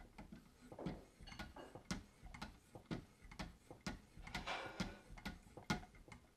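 Wicked Edge guided knife sharpener worked by hand: a string of light clicks and scrapes, about two a second, as the sharpening paddles tap and rub against the clamped blade, with a longer scrape about four and a half seconds in.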